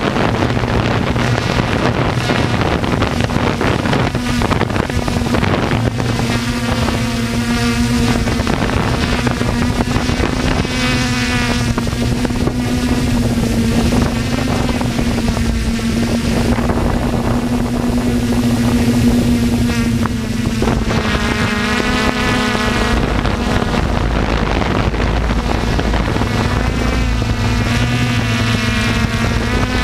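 Electric motors and rotors of a radio-controlled model aircraft running with a steady hum, with rotor wash buffeting the microphone as wind noise.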